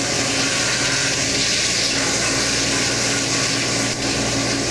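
Steady drone of a longline fishing boat's engine and deck machinery under a constant rush of sea water and hiss.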